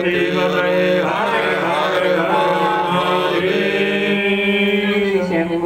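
Voices chanting a devotional Hindu mantra in long, held notes.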